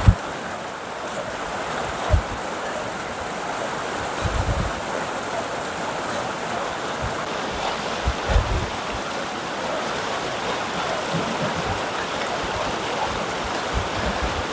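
Mountain river rushing steadily over its bed, with a few brief low bumps, about four, scattered through it.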